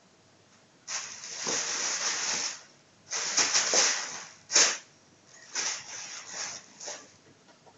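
Plastic bag crinkling and rustling in several bursts with short pauses between, as a kitten plays in it.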